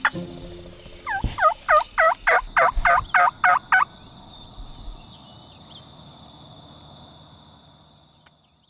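Wild turkey calling: a run of about ten quick notes over roughly three seconds. A faint, steady, high insect-like buzz continues after the calls and fades out near the end.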